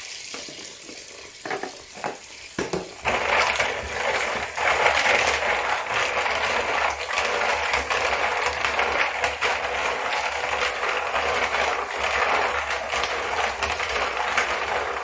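Mussel shells clattering and grinding against one another in a bowl as they are rubbed and washed. A few separate clicks come first, then a dense, continuous rattle starts about three seconds in.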